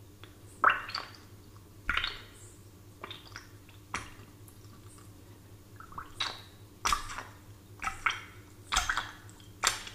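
Water bubbles plopping in a glass of water: a run of short separate plops, about one a second at first and coming quicker and closer together in the second half.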